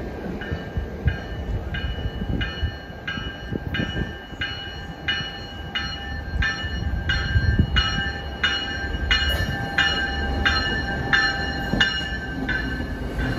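A warning bell ringing steadily, about three strokes every two seconds, over the low rumble of an approaching MBTA commuter rail train.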